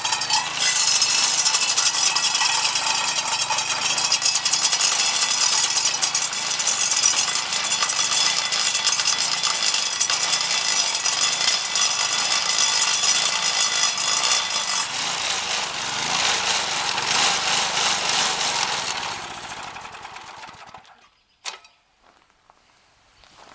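Homemade stump grinder cutting into a mulberry stump. It is an edger's Briggs & Stratton 4.5 hp vertical-shaft engine spinning a 10-inch carbide-tipped saw blade on a wobble plate, and the engine drone sits under the loud, rough rattle of the blade tearing out chips. The sound dies away about twenty seconds in.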